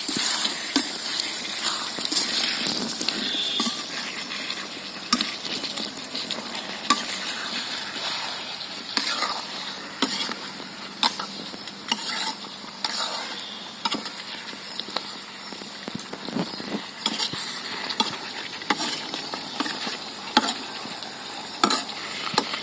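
Mutton and potato pieces sizzling in hot oil in a black kadai while a metal spatula stirs them, scraping and knocking against the pan at irregular moments. The meat is at the kosha stage, being fried down in oil and spices.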